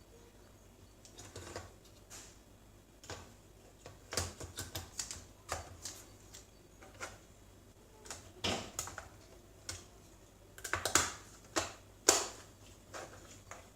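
Irregular plastic clicks, taps and knocks from hands and a tool working on the plastic underside of a Toshiba Satellite laptop. Some come in quick clusters, with the loudest near the end.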